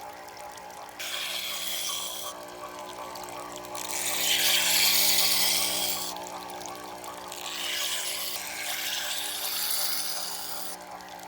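A pocket knife blade drawn across a sharpening stone in three long scraping strokes, the middle one the loudest, over steady background music.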